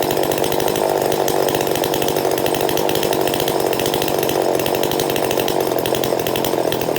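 Small two-stroke chainsaw engine running steadily at a constant speed, with no revving up or down.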